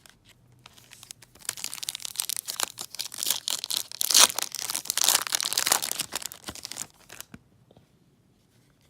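Trading card pack wrapper being torn open and crinkled, a dense crackling tear from about a second in until about seven seconds, loudest around the middle.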